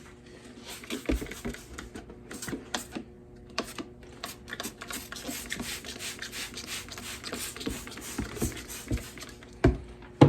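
Irregular clicks, taps and rattles of hand work on a lawn tractor tyre and wheel, with a hiss running for several seconds in the middle.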